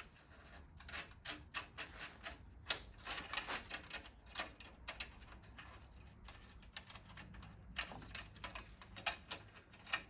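Light, irregular clicks and taps of small metal parts and hardware being handled, several a second at times.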